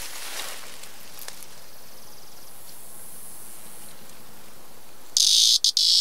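Male prairie cicada (Tibicen dorsatus) starts a loud, harsh buzz about five seconds in as it is grasped by hand, broken by a few brief gaps. It is his warning or protest call, made by the timbals on his abdomen. Before it there is only a steady background hiss.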